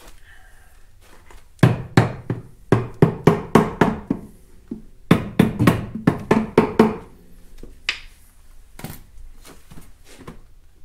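Rubber mallet knocking on the Kymco XTown 300 scooter's variator and clutch cover in two runs of quick light blows, about four a second, then a couple of softer taps. The blows break loose the rubber-gasket seal so the unbolted cover comes free.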